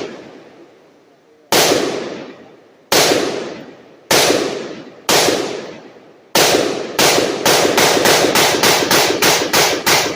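Gunshots on a shooting range, each with a short echoing tail: five single shots about a second apart, then a rapid string of about a dozen shots at roughly four a second.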